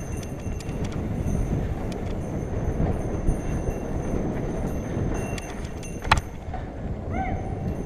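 Mountain bike rolling fast along a dirt trail: a steady rumble of wind and tyres with rattling clicks from the bike, a sharp knock about six seconds in, and a few short squeaks near the end.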